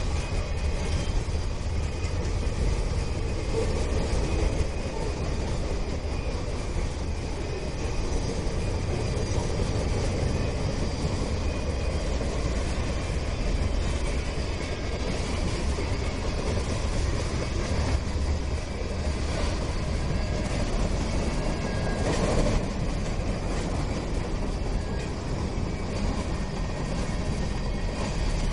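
Freight train of boxcars, gondolas and covered hoppers rolling past: a steady rumble and rattle of steel wheels on the rails, with a brief louder clatter about 22 seconds in.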